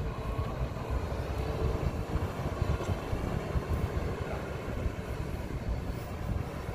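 A semi-truck's diesel engine running as the rig creeps forward at low speed, a steady low rumble.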